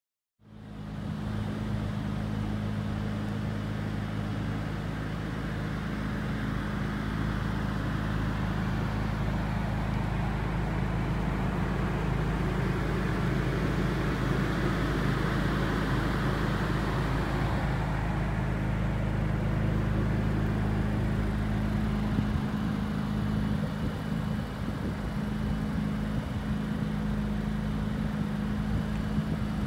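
2017 Acura NSX's 3.5-litre twin-turbocharged V6 idling steadily at an even, unchanging pitch, starting about half a second in.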